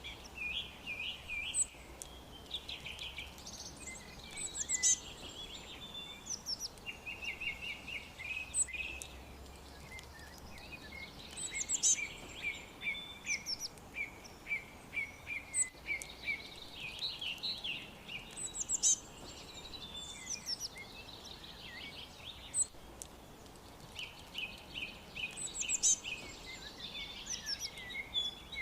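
Several songbirds chirping and trilling: rapid runs of short high notes, with a quick falling call that comes back about every seven seconds.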